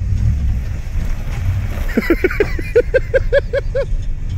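Ford F-250's 460 big-block V8 running steadily in a low rumble. About two seconds in, a quick run of about ten short pitched chirps comes over it, roughly five a second.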